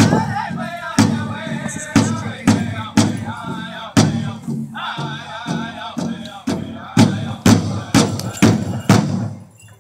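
Powwow drum group: a large bass drum struck about twice a second while the singers chant in high voices. The song stops shortly before the end.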